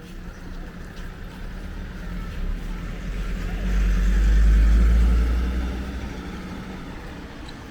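A motor vehicle driving past, its low engine rumble growing to its loudest about four to five seconds in and then fading away.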